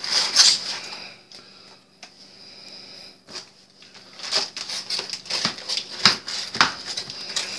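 Aluminium foil crinkling and tearing as a serrated knife saws it open over a roast, an uneven run of crackles and rustles. It is loudest in the first half-second and again over the last few seconds, quieter in between.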